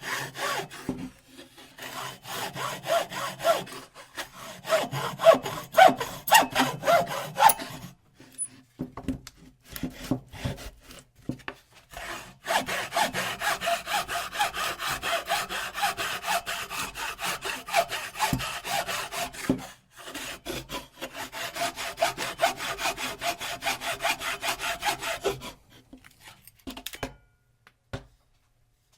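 Hand saw cutting with quick back-and-forth strokes in two runs: a first run of about eight seconds, a few seconds of scattered single strokes, then a longer steady run, followed by a few light knocks near the end.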